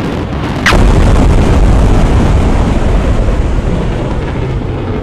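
A sudden loud boom about a second in, followed by a long deep rumble that slowly fades.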